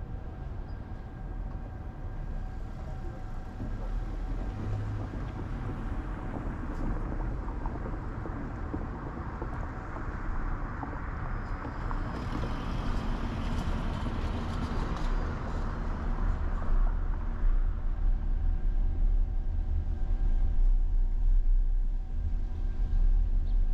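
Car driving on city streets: steady road and engine rumble with a faint steady hum. About halfway through, a louder rush of tyre and traffic noise swells and fades over several seconds. The low rumble grows louder near the end.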